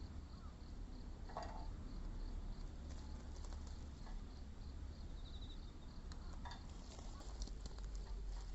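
Wood fire crackling, with scattered sharp pops and snaps over a steady low rumble. Faint insects chirp in an even, repeating pattern behind it.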